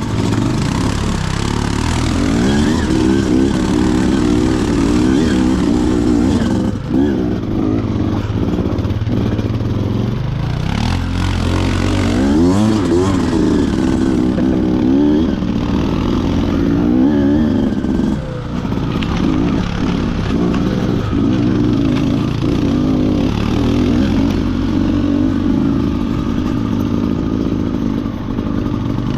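Off-road vehicle engine ridden along a rough trail, its revs rising and falling over and over, with brief dips about 7 and 18 seconds in.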